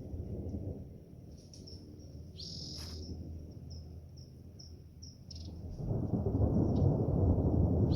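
A low rumble that grows much louder about six seconds in, with short, high bird chirps repeating above it.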